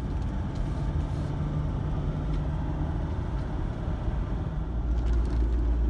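Truck engine and road noise heard from inside the cab while driving, a steady low rumble that deepens and grows louder about five seconds in.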